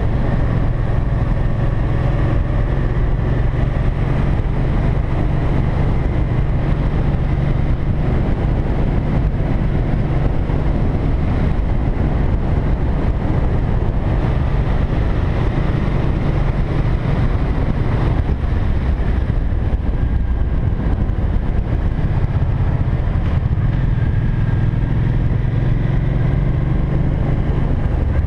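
Cruiser motorcycle running at a steady road speed, its engine hum mixed with wind rushing over the microphone.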